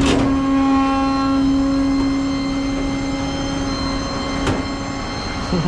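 Truck engine running with a steady drone over road or mechanical noise. There is a sharp click at the start and another about four and a half seconds in.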